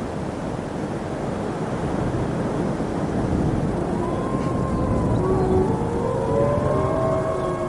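Strong gusty wind with a low rumble, joined about halfway through by faint howling tones that waver and slide in pitch.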